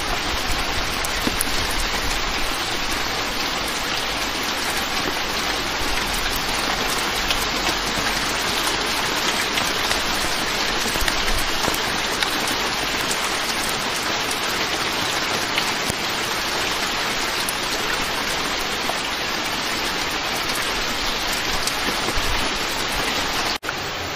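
Heavy downpour of rain, a dense steady hiss. Near the end it cuts out for an instant and comes back slightly quieter.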